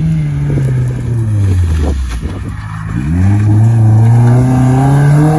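Vauxhall Corsa B rally car's 1.4-litre eight-valve four-cylinder engine. It eases off, its pitch falling over the first two seconds, then revs up about three seconds in and climbs steadily as the car accelerates.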